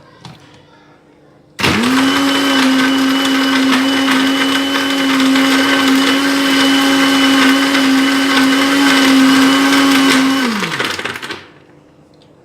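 Electric mixer grinder blending milk and chocolate into a milkshake. It switches on abruptly about a second and a half in, runs at a steady high speed with an even whine, then is switched off and its pitch drops as it spins down near the end.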